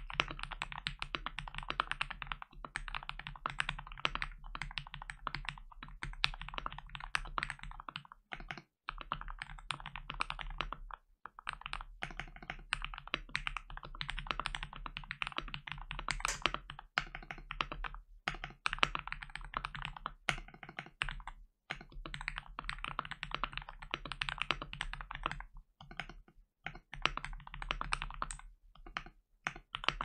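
Fast typing on a Feker FK68T 65% mechanical keyboard with lubed Gateron Milky Yellow linear switches, PBT keycaps, case foam, PE PCB foam and Holee-modded stabilisers: a dense, continuous stream of keystrokes, broken by a few short pauses.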